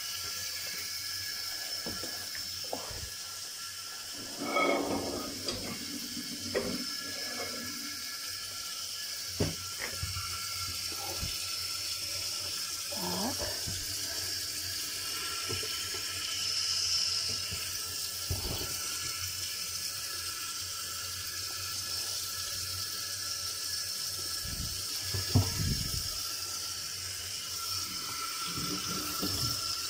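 Kitchen tap running into a sink while a frying pan is washed, with scattered knocks and clatters of the pan against the sink.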